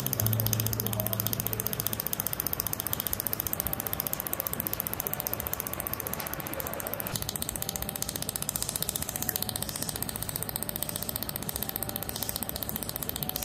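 Pulsed laser welder firing over and over, a rapid, even ticking from each laser pulse as a weld bead is laid on a mold. Faint background music fades out about two seconds in.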